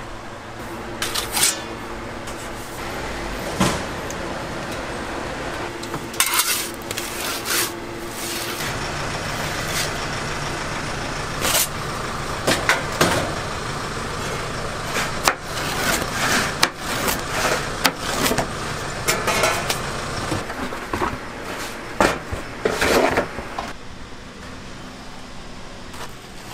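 Food-truck kitchen noise: a steady machine hum under repeated clatter and knocks of pizza peels and metal utensils, growing quieter near the end.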